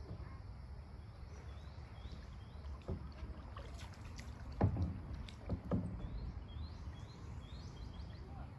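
Kayak paddling on a calm river: water movement and a low rumble, with a few knocks, the loudest about four and a half seconds in. A series of short rising chirps sounds faintly in the background twice.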